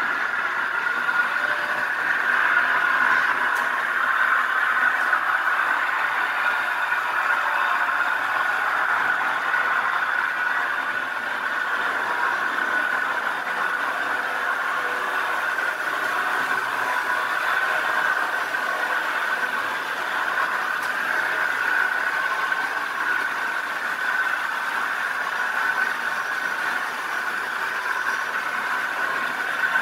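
Märklin HO model trains running on the layout: a steady, unbroken whir of their small electric motors and wheels on the metal track.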